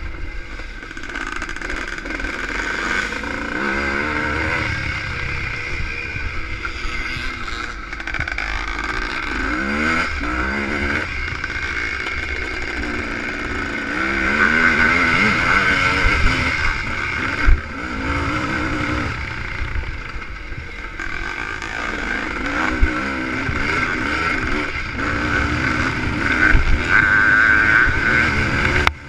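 ČZ two-stroke motocross motorcycle engine heard from on board under racing load, its pitch repeatedly rising and falling as the rider revs and shifts. Wind buffets the microphone throughout, and there is a sharp knock about 17 seconds in.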